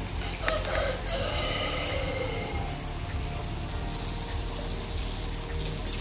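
Background music with a rooster crowing once, starting about half a second in: one call lasting about two seconds that falls in pitch at the end.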